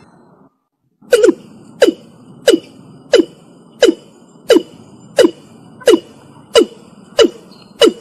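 Watercock calling: a steady series of short, sharp notes, each falling in pitch, repeated about one and a half times a second, starting after a brief break about a second in.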